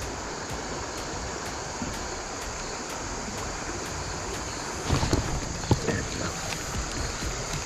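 Steady rushing of flowing creek water running high after rain. From about five seconds in, a run of irregular knocks and rustles joins it.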